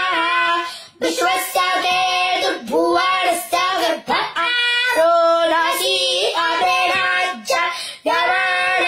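A young boy chanting Vedic mantras solo in a clear, high child's voice. The chant is held on a few steady notes that step up and down, in phrases broken by short breaths about three times.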